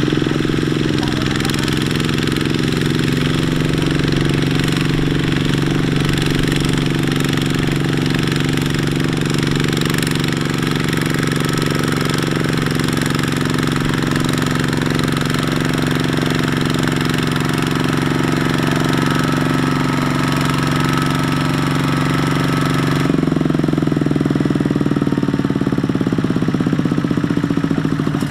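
Single-cylinder Kubota diesel engine of a two-wheel walking tractor running steadily under load as it hauls a loaded trailer through deep mud. Its sound changes abruptly about three quarters of the way through.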